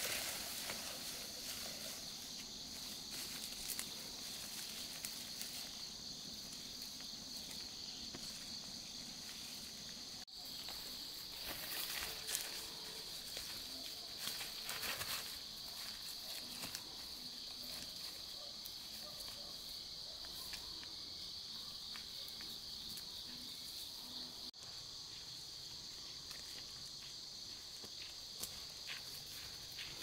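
Insects chirring in a steady high-pitched chorus, with scattered rustles and light clicks of someone moving about close by.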